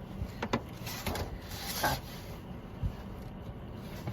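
A sandwich being handled and set straight: a few light knocks and rustles over a steady low hum.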